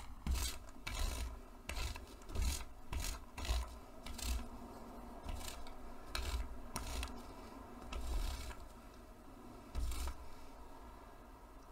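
A small hand ink roller rolling back and forth over fabric pressed onto a textured print plate, a repeated rubbing, rasping stroke. The strokes come quickly at first, then fewer and further apart.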